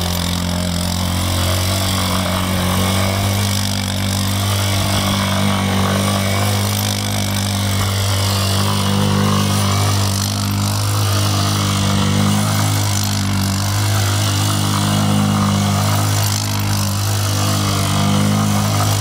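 Kymco MXU 150 ATV's single-cylinder four-stroke engine running at a fairly steady speed, its pitch wavering slightly with small throttle changes.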